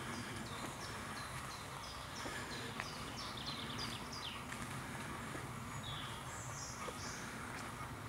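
Common nightingale singing: short repeated high notes, a quick rattling series about three seconds in, and a higher whistled phrase about six seconds in, over a steady low background rumble.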